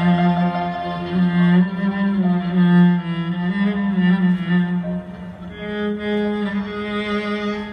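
Solo cello played with the bow in long held low notes that change about once a second, over a string ensemble with violins.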